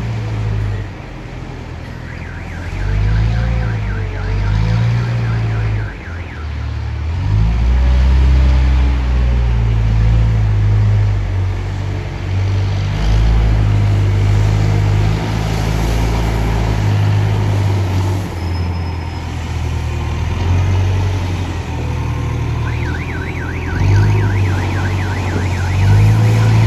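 The diesel engine of a self-loading concrete mixer running, its revs rising and falling. Twice, from about two seconds in and again near the end, a rapid high warbling alarm sounds over it.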